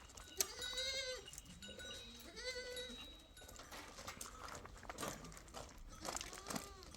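Small livestock bleating: three bleats, about a second in, about two and a half seconds in and near the end, with a few light knocks and clicks between them.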